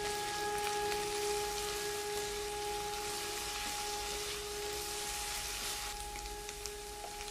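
Diced onion and carrot sizzling in oil in a hot non-stick pot, stirred with a spatula, with faint held music notes underneath.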